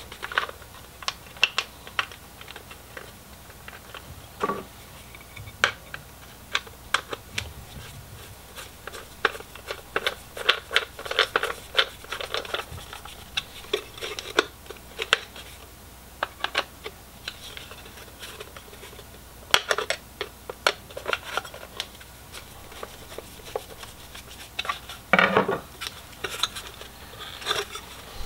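Plastic fog-light housing and lens being handled and fitted together by hand, with scattered sharp clicks, taps and short scrapes. A denser run of scraping and clicking comes near the end.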